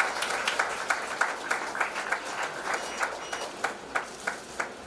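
Audience applauding, dying down into a few scattered claps near the end.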